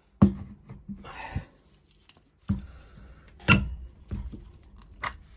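Handling knocks and scrapes of a brushless servo motor as its permanent-magnet rotor is pulled out of the stator against the magnets' strong pull: about five sharp clunks spread over several seconds, with brief scraping between them.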